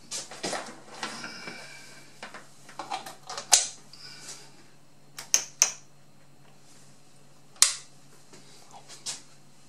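Mains plug pushed into a wall socket and power switches clicked on as the Jobo CPE2 Plus film processor is powered up: handling rustle, then a series of sharp clicks, the loudest about three and a half seconds in, two close together past five seconds and one more near eight seconds.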